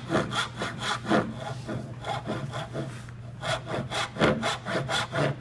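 Hand saw cutting a wooden tenon down to the shoulder line in quick, even back-and-forth strokes. The strokes ease off and grow fainter for about a second in the middle, then pick up again.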